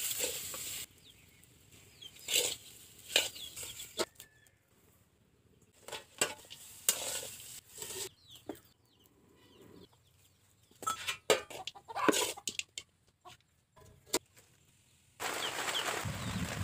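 Chickens clucking on and off, among scattered short knocks and scrapes. A steady hiss sets in near the end.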